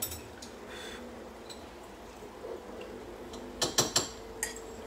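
Quiet room with a cluster of sharp clinks of a fork against a ceramic bowl about three and a half seconds in, and one more near the end.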